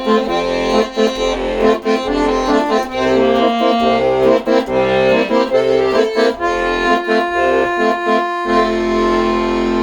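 Accordion playing a tune over changing bass and chords, then settling into a long held chord near the end.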